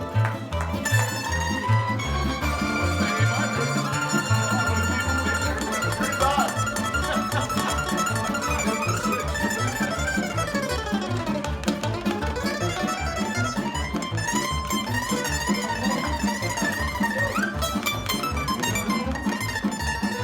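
Croatian tamburitza ensemble playing live: bright plucked tamburica strings carrying a quick melody over a steady rhythmic bass line.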